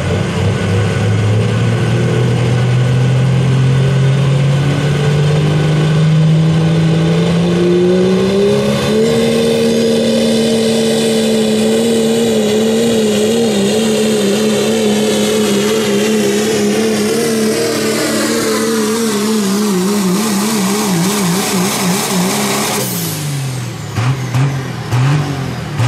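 Dodge Ram Cummins diesel pulling truck under full throttle dragging a weight-transfer sled, with black smoke pouring from the stack. The revs climb steadily over the first several seconds, then hold high with a wavering pitch under a high turbo whistle. They sag over the last third, and the throttle comes off near the end, leaving the engine note uneven.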